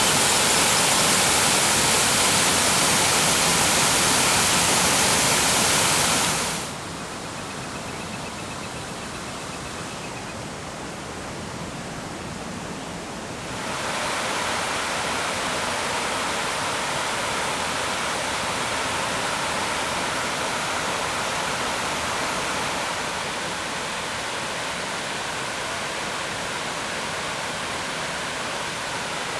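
Rushing water from a waterfall, a steady hiss of falling water. It drops to a softer level about seven seconds in and grows louder again about fourteen seconds in.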